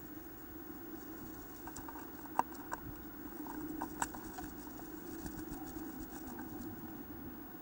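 A great tit shifting about inside a wooden nest box: a few light scratches and taps against the wood, the sharpest about two and a half and four seconds in, over a steady low hum.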